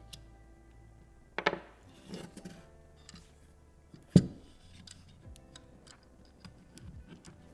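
Handling noises from an unboxing over soft background music: scattered clicks and a clatter, with one sharp knock about four seconds in.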